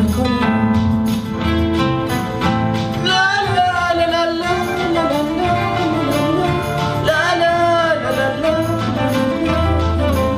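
A song: a voice singing long, wavering notes over an instrumental backing with a steady bass.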